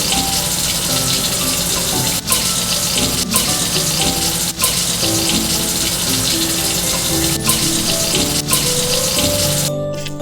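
Water running steadily from a tap, cutting off suddenly near the end, with a few light clicks and soft background music underneath.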